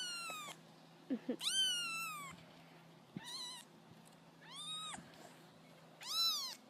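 A kitten meowing repeatedly: about five high-pitched meows, each rising and then falling in pitch, roughly one every second and a half, the middle one fainter.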